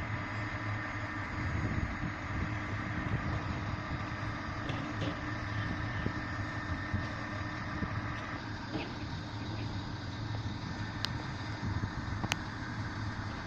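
Diesel engine of a stationary rail maintenance vehicle idling steadily, with a higher whine that cuts off about eight seconds in. A few sharp clicks near the end.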